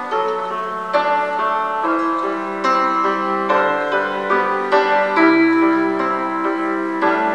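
Grand piano played solo: slow, sustained chords under a simple melody, a new chord struck about once a second.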